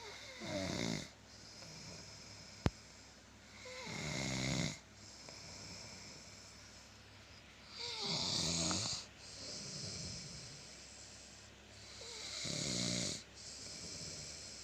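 Snoring in deep sleep: four long, rattling snores, about one every four seconds, with softer breaths between them. A single sharp click sounds a little under three seconds in.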